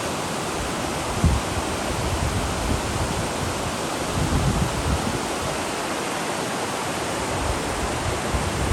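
River water rushing steadily, with a single low thump about a second in.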